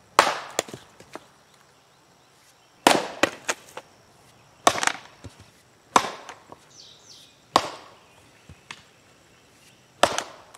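An axe with a 3D-printed polycarbonate head chopping into logs on a chopping block: six sharp chops, one every one to three seconds, some followed by lighter knocks.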